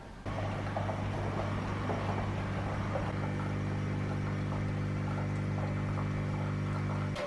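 A household electric appliance running with a steady mains hum. It starts just after a sharp click and stops abruptly after about seven seconds, with a second click.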